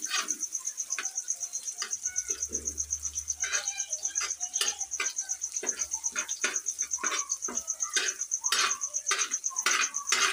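A metal spatula scraping and knocking on a flat tawa griddle in quick repeated strokes as egg is stirred and chopped into masala, a few strokes each second. A steady, fast-pulsing high chirp runs behind it.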